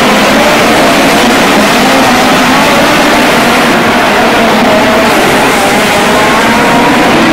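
Several midget race cars' four-cylinder engines running on a dirt track, loud and without a break, their engine notes overlapping and rising and falling as the cars go through the turn.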